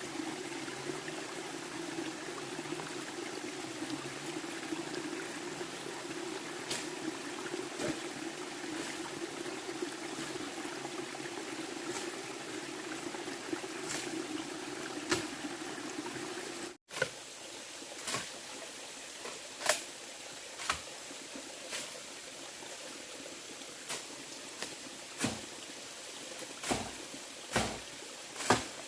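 Water running and trickling steadily for the first seventeen seconds or so. After a sudden break, scattered sharp clicks and knocks.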